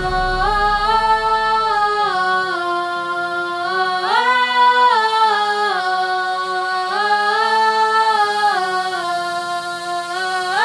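Music without a beat: sustained, layered vocal or synth chords that slide to a new chord every couple of seconds.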